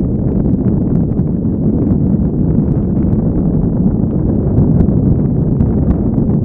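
Wind from a paraglider's airspeed buffeting a pole-mounted camera's microphone in flight: a steady, low rushing rumble with no pauses.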